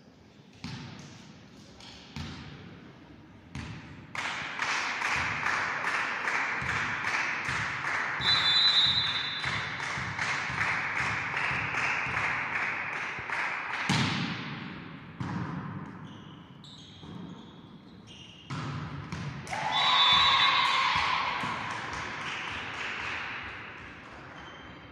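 Volleyball rally in an echoing sports hall: repeated ball hits and thuds, with players' voices calling over them, and a sharp loud strike about fourteen seconds in. A loud burst of shouting comes about twenty seconds in, as the team wins the point.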